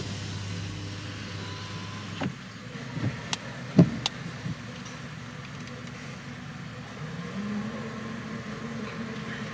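Car engine running, heard from inside the cabin, with a few sharp clicks and knocks around the middle, the loudest about four seconds in. Near the end the engine note rises a little and then holds.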